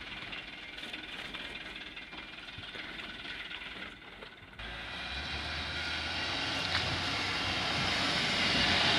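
Diesel engine of a Hino Dutro light truck working hard under load as the truck climbs out of a muddy rut. About halfway through, after a short break, its deep engine note comes in strongly and grows steadily louder.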